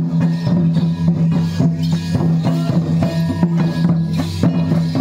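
Santali Karam dance music: a barrel drum beating a steady rhythm under sustained melody notes.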